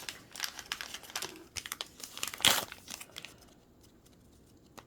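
Small plastic packaging crinkling and tearing as a miniature wrapped item is opened by hand, with a sharp loud crackle about two and a half seconds in, then quiet for the last second and a half.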